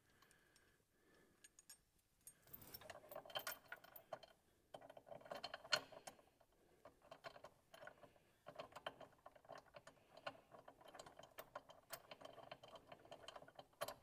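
Faint clinking and rattling of a steel chain and its clevis shackle being handled and fitted into a bracket hole: a run of small, irregular metallic clicks starting about two seconds in.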